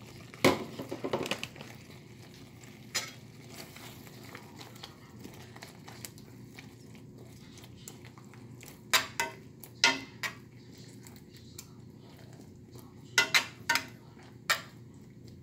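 A spoon clinking against a cast-iron skillet full of thick caldereta sauce while bell pepper strips are stirred in: a scattering of sharp clinks, mostly in two short groups in the second half.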